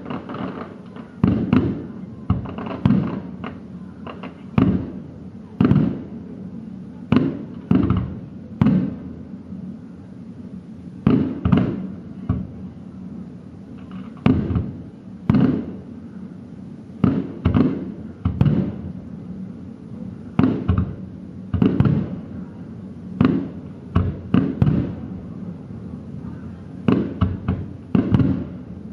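Aerial firework shells bursting in a long irregular series, roughly one or two bangs a second with a couple of short lulls, each bang trailing off in an echo.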